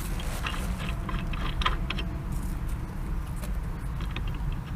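Small metal parts of an air-gun bench rest being handled, giving scattered light clicks and clinks, most of them in the first two seconds. A steady low rumble runs underneath.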